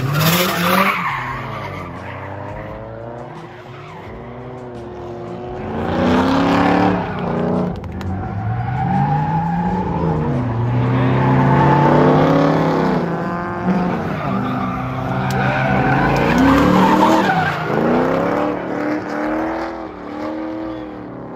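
Drift car engine revving up and down over and over while the tires screech in long slides, loudest in several surges.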